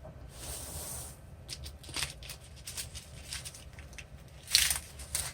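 Handling noises while unpacking a sewing machine: scattered clicks and rustles, with a louder rustling burst about four and a half seconds in.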